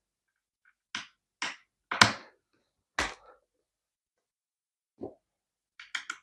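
A series of short, sharp knocks and clacks, about seven, irregularly spaced, with the loudest about two seconds in. They come from cat tree parts of plush-covered particle board being handled and fitted together during assembly.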